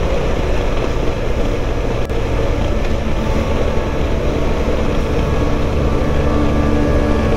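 Touring motorcycle riding along at road speed: the engine runs steadily under heavy wind rush and buffeting on the bike-mounted microphone.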